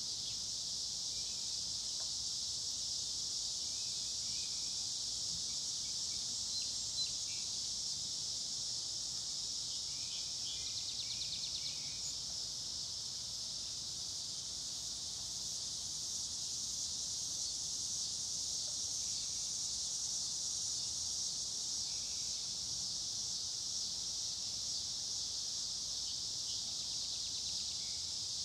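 Steady, high-pitched chorus of night insects, with faint short chirps scattered through it and a brief rapid trill about ten seconds in and again near the end.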